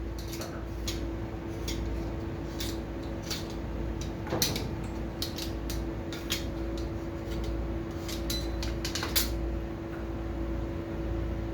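Scattered light clicks and clinks of small tools and parts being handled during an electronics installation, over a steady low hum.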